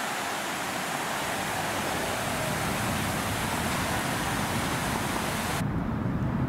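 A steady, even rushing hiss that cuts off suddenly near the end, with a low rumble underneath that carries on after it.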